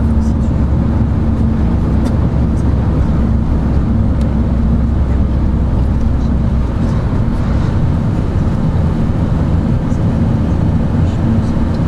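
Car interior while driving at steady speed: a loud, steady low drone of engine and road noise with a constant engine hum.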